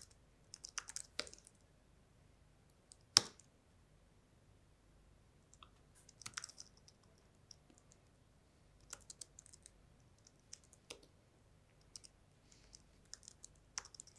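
Typing on a low-profile computer keyboard: short bursts of key clicks with pauses between them, and one much louder knock about three seconds in.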